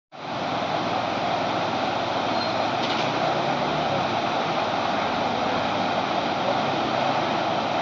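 A swollen river rushing steadily through the concrete piers of a bridge.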